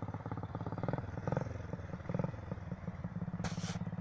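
Homemade motorcycle's French Bernard 127 engine running under way, its rapid firing beat steady with small rises and falls in engine speed. A short hiss comes in about three and a half seconds in.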